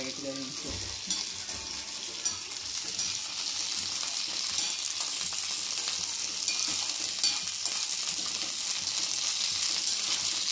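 Green chillies sizzling in a little hot oil in a pan, stirred with a steel spoon that clicks and scrapes against the pan now and then. The sizzle grows a little louder as it goes.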